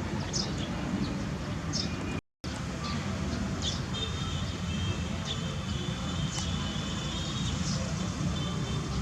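Outdoor background: a steady low rumble with short, high chirps every second or so, a thin high trill from the middle to near the end, and a brief cut to silence a couple of seconds in.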